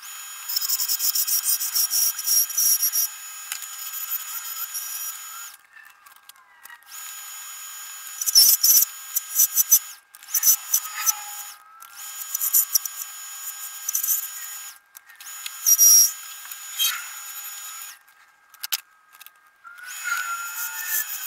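Wood lathe cutting a spinning wooden pepper-grinder blank. The tool works in stretches of a few seconds, a high hissing scrape broken by short pauses, with a few sharper, louder catches.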